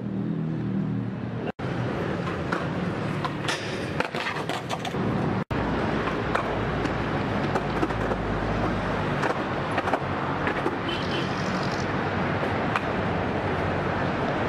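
Skateboard wheels rolling on concrete, with scattered clacks and knocks of the board, over a steady hiss of street noise. The sound cuts out abruptly twice.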